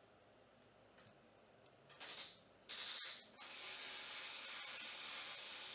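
Pressurised spray hissing in bursts while oil is cleaned off the engine's cylinder head: two short squirts about two and three seconds in, then a long continuous spray. Before the spray there are only faint ticks.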